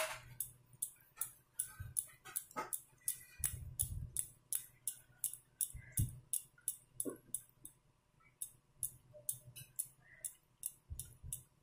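Soft, ghee-rich maida dough being pressed and worked between the palms into a balushahi, making a run of small sticky clicks, several a second, that thin out in the second half.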